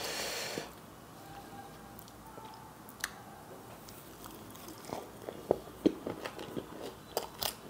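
Close-miked eating: a brief rustle as food is picked up, then a bite and quiet wet chewing of green chilli naan with curry. The mouth clicks grow more frequent in the last few seconds.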